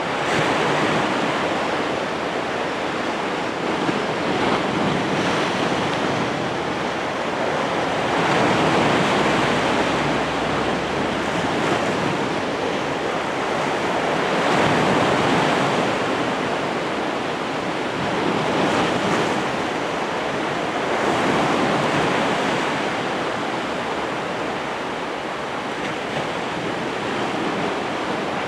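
Sea surf washing in, an even rush of water that swells and eases every several seconds, with wind buffeting the microphone.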